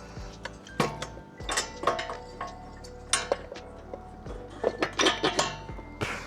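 Metal parts of a motorcycle's rear brake assembly and wheel hardware clinking and knocking together as they are handled and fitted, in a string of irregular sharp clinks with a short ring.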